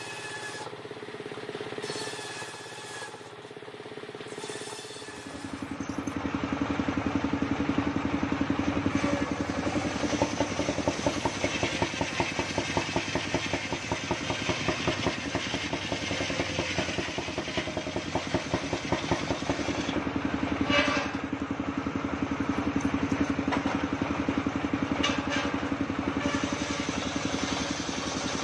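Engine-driven table circular saw running with a fast, even pulsing beat. About five seconds in the sound gets louder and drops in pitch as the blade cuts through a log, with a few sharp knocks of timber later on.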